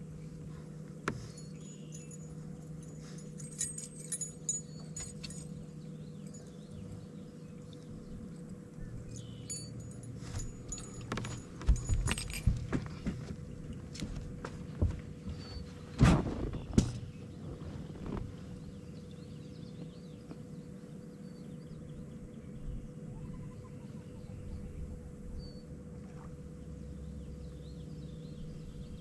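Knocks, thumps and light rattles of an angler moving about a fibreglass bass boat's deck and handling fishing gear, loudest in two clusters a little before and after the middle, over a steady low hum.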